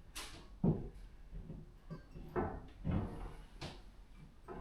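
A handful of light knocks and clunks, about five spread over four seconds, as something is shifted about by hand during plumbing work.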